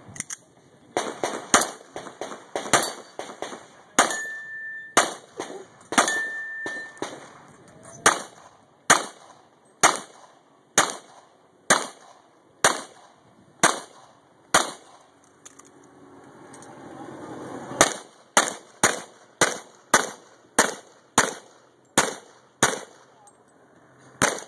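Pistol shots fired in quick strings, some thirty sharp cracks in all, spaced about a second apart in places and faster in others, with a pause of about three seconds two-thirds of the way through. Two brief ringing tones sound between shots a few seconds in.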